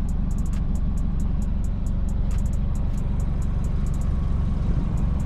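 Background music beat: quick, evenly spaced ticks, some in rapid rolls, over a deep steady bass.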